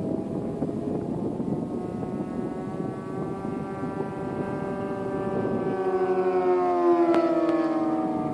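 Engines of radio-controlled model warbirds making a low pass. The engine drone grows louder, then drops in pitch as the models go by, about seven seconds in. Wind buffets the microphone during the first part.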